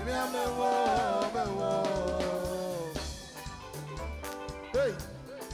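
Live band music: a drum kit played in a groove with a bass line underneath and a melody line that glides downward over the first three seconds.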